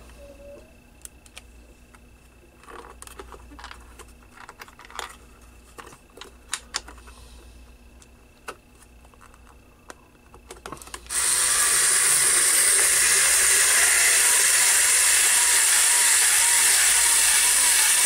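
A few light clicks from handling plastic parts. About eleven seconds in, a small cordless electric screwdriver starts up and runs steadily for about seven seconds, then stops abruptly.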